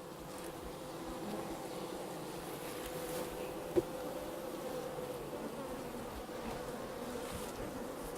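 Honeybees buzzing in a steady hum over an opened hive box. A single sharp click sounds about four seconds in.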